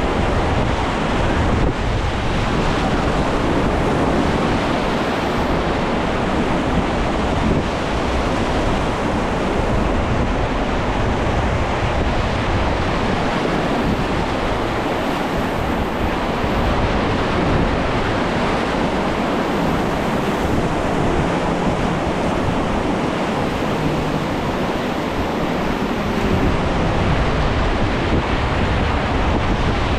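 Whitewater river rapids rushing, loud and steady, with wind buffeting the microphone.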